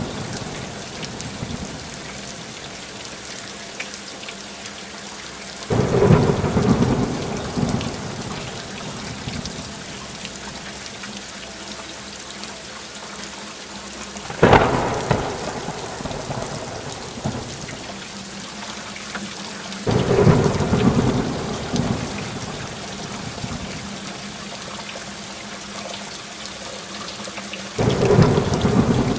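Steady heavy rain with thunder rumbling through it four times: about six seconds in, a sharper, louder crack near the middle, then again around twenty seconds and near the end.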